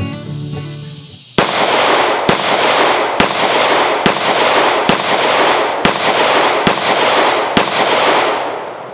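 A stainless all-steel Colt Wiley Clapp Commander 1911 pistol in .45 ACP fired eight times in a steady string, a shot a little under every second, each shot trailing off in echo. Acoustic guitar music fades out just before the first shot.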